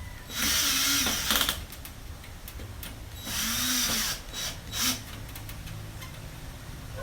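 Power screwdriver driving screws in two runs of about a second each, with a couple of short bursts after: a replacement power supply being screwed into a computer case.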